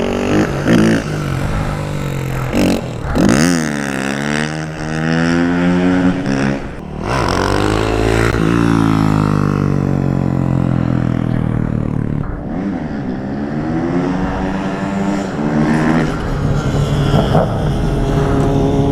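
Single-cylinder supermoto motorcycle engine revving and accelerating. Its pitch climbs and falls several times as it is worked through the throttle and gears, with a long falling stretch in the middle and a steadier run near the end.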